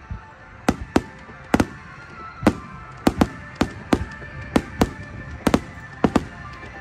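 Aerial fireworks bursting in an irregular string of about fifteen sharp bangs, several in quick pairs, with music playing underneath.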